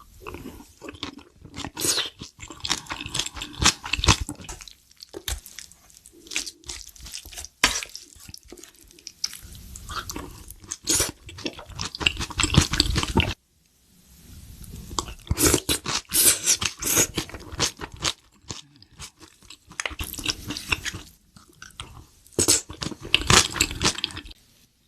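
Close-miked eating sounds: food being bitten, crunched and chewed in several bouts of crisp clicks and crackles, with some wet squishing, broken by a short pause about halfway through.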